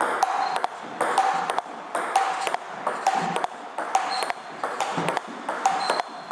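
Table tennis rally at a brisk pace: the ball clicking off the bats and bouncing on the table in a quick, steady rhythm of about three clicks a second.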